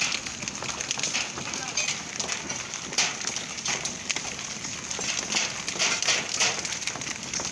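Hailstones falling on brick paving and ground already covered in hail: a dense, uneven crackle of many small impacts.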